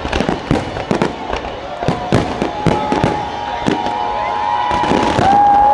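Fireworks finale: a rapid string of bangs and crackles, several a second. From about two seconds in, several whistling shells join with sliding tones, the loudest near the end.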